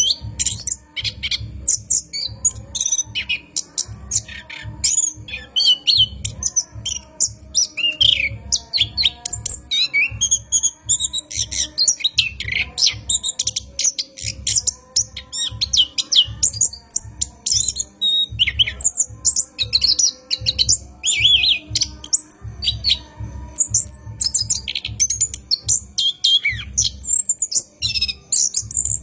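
Orange-headed thrush (anis kembang) singing a long, continuous rolling song of quick, varied chirps and whistled phrases without pause. A faint low pulsing runs underneath.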